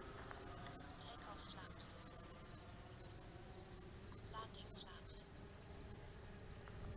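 Steady, faint, high-pitched chorus of insects in the field, holding one even pitch.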